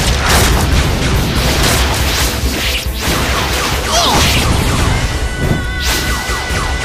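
Battle-scene soundtrack: loud music layered with booming and crashing impact effects and whooshes, with a single shout about four seconds in.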